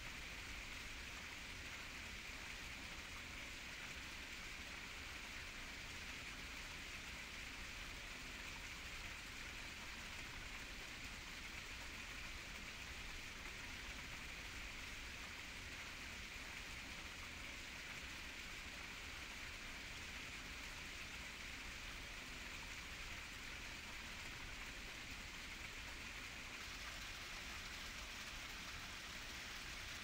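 Small rocky garden waterfall splashing steadily into a pond, an even hiss of falling water.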